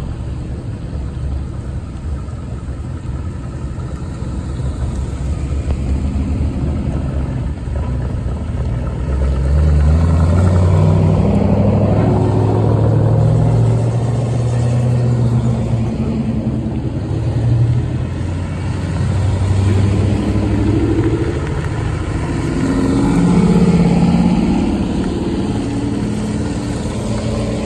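A procession of Ford Mustangs and Shelbys driving slowly past one after another, their engines running at low speed with some light revving. The engine sound swells as each car passes, loudest from about ten to sixteen seconds in and again around twenty-four seconds in.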